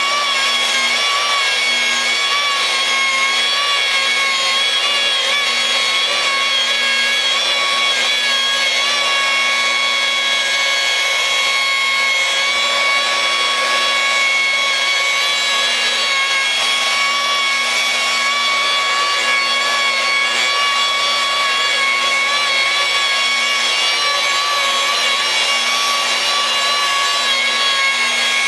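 Electric rotary glass polisher running steadily, its pad rubbing polishing compound over glass under light pressure, with a constant motor whine over the scrubbing hiss.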